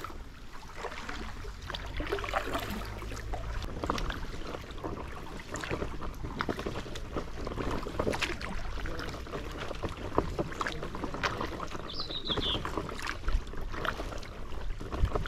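Inflatable kayak being paddled and pushed through fallen tree branches on the water: a steady run of irregular crackles, knocks and scrapes of twigs and leaves against the hull and paddle.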